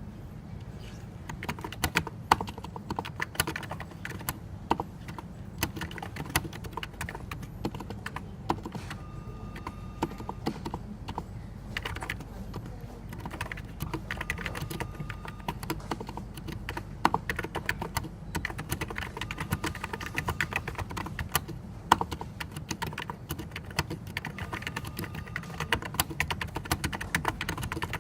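Typing on a NiZ Plum 84 electrostatic capacitive (Topre-style) keyboard: a fast, irregular run of key strokes with short pauses and an occasional louder keypress, over a steady low hum.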